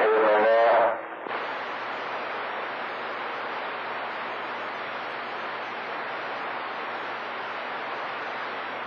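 CB radio receiving on channel 28: a distant skip voice cuts off about a second in, leaving a steady hiss of band static with no station on the channel.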